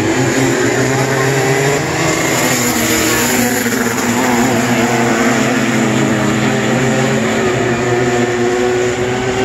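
Several winged micro sprint cars racing, their small high-revving motorcycle engines running together in a loud mix, the pitch rising and falling as they accelerate and lift through the corners.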